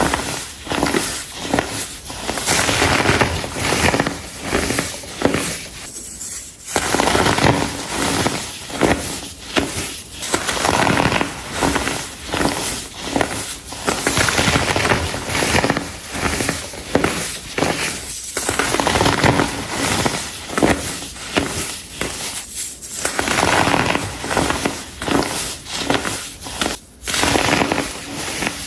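Baked baking soda blocks crushed and crumbled by hand, a dense crackling crunch with squeaks, coming in repeated squeezes with short pauses between.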